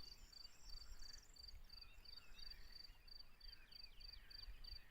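Faint chorus of frogs and insects calling: a steady pulsed chirp repeating about three times a second, joined about halfway through by a run of quick falling chirps.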